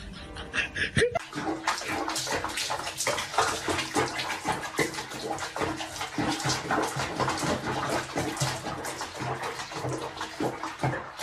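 Bathwater splashing and sloshing in a bathtub full of bubble bath, in a dense, irregular run that starts about a second in.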